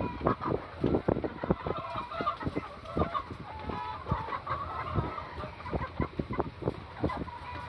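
A large flock of white broiler chickens clucking, many short calls overlapping without pause.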